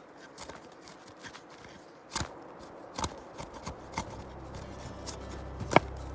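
Bark River Golok blade chopping and shaving a wooden spindle: a handful of sharp, irregular knocks, the strongest about two seconds in and near the end.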